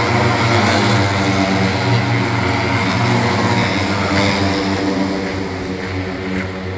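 Helicopter flying overhead, a steady pitched drone of rotor and engine that begins to fade over the last couple of seconds.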